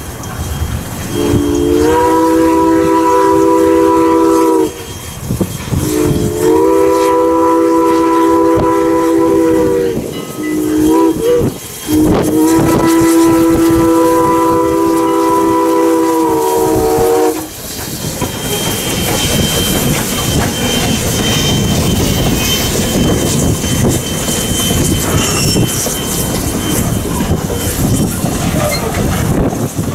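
Steam locomotive's whistle blowing the grade-crossing signal: two long blasts, one short and one long, each a steady chord of several notes. Then the train passes close by, wheels clicking over the rail joints.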